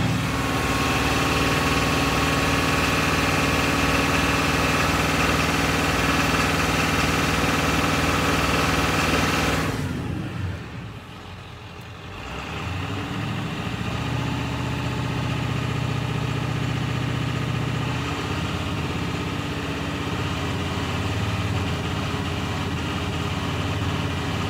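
Ford 7.3 L Power Stroke V8 turbo diesel held at raised RPM, its speed and level dropping sharply about ten seconds in, then picking back up and running steady. The skip and clank it makes at high RPM are, in the owner's belief, caused by a faulty injector.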